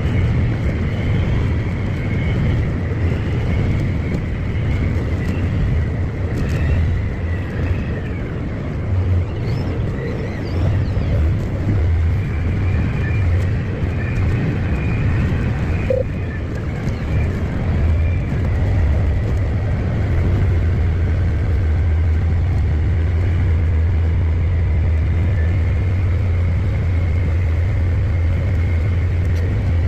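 Tracked tractor driving steadily at road speed: a low engine drone with a faint steady high whine, the drone evening out and growing a little louder past the middle.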